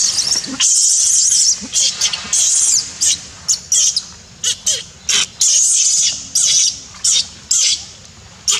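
A young macaque crying in a string of shrill, high-pitched squeals, a couple of longer cries at first and then many short ones. The cries are distress calls of an abandoned baby monkey.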